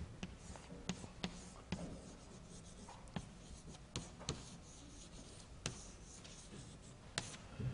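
Chalk writing on a blackboard: faint, irregular taps and short scratches as the chalk forms letters.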